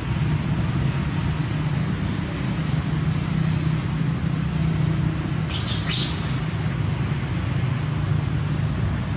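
Steady low background rumble, with two short shrill cries close together a little past halfway.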